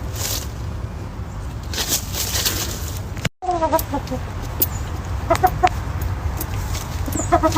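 Chickens clucking in short pitched calls, in a few bursts, over a steady low rumble. The sound cuts out completely for a moment about three seconds in.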